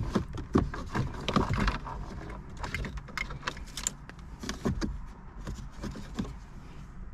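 Car-radio wiring harness and plastic plug connectors being handled and fed through the dashboard's radio opening: an irregular string of clicks, knocks and scrapes of plastic and wire against the dash.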